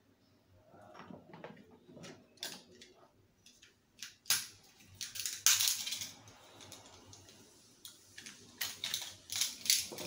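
Screwdriver prying at the small retaining clip on an old Arno fan's shaft and gear housing: scattered sharp metallic clicks and scrapes, louder from about four seconds in, as the clip is worked loose.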